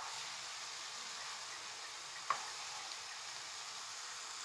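Minced beef and onion filling sizzling steadily in a frying pan as a spoon stirs it, with one sharp knock of the spoon against the pan a little past two seconds in.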